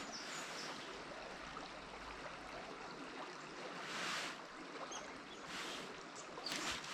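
Small river flowing steadily, an even rush of water, with a few brief louder rushes about four, five and a half and six and a half seconds in.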